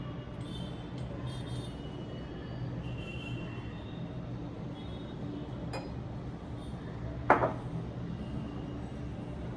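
A piece of crockery set down with one sharp clink about seven seconds in, after a lighter tap near six seconds, over a steady low hum.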